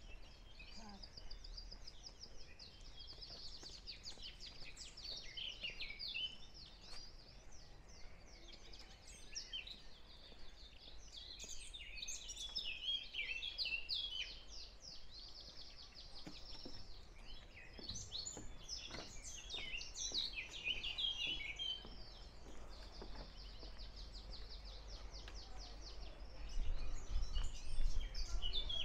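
Many small songbirds chirping and trilling at once, a continuous chorus of quick, high twittering. A low background noise grows louder near the end.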